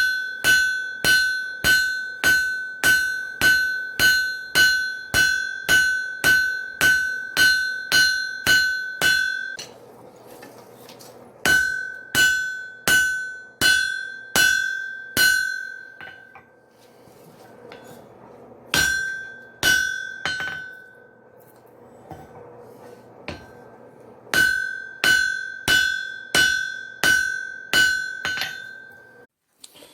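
Hand hammer striking hot wrought iron on an anvil, about two blows a second with a bright ring after each, in four runs broken by short pauses: rough forging of an axe body.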